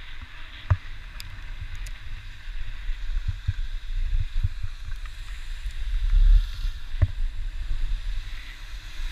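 Skis running over groomed snow with a steady hiss, and wind rumbling on the head-mounted action camera's microphone. Two sharp knocks, about a second in and near the end.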